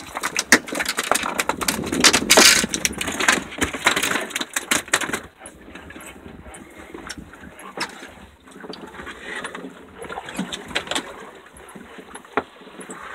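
Red snapper flopping and slapping against the boat deck: a rapid run of sharp knocks for about the first five seconds, then fewer, lighter knocks as it is held down.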